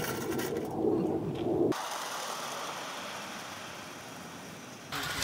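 Clockwork wind-up toy train running on garden-railway track, with a steady mechanical running sound from its spring motor and wheels. Just under two seconds in, the sound cuts abruptly to a fainter, even noise that slowly fades, then jumps back louder near the end.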